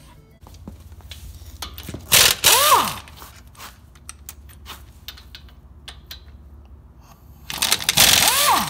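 Air impact wrench loosening the two 16 mm brake caliper bolts: two short bursts of hammering about five seconds apart. Each ends with the air motor whining down in pitch as the trigger is let go, over a steady low hum.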